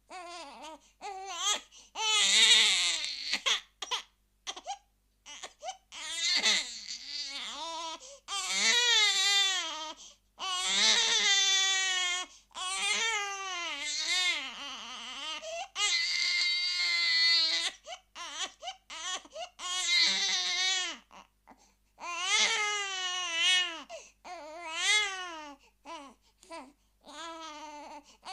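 Baby crying: a string of wavering wails, each a second or two long, broken by short gasping breaths between them.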